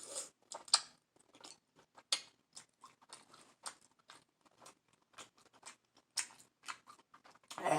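A person chewing seafood-boil food with wet mouth smacks: a sparse, irregular run of short clicks.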